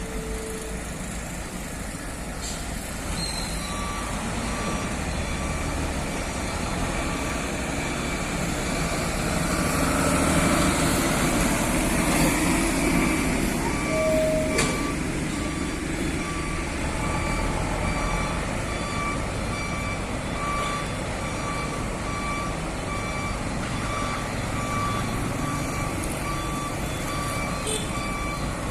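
Heavy vehicle's reversing alarm beeping at a steady, even pace over the rumble of a diesel engine, which grows louder for a few seconds midway.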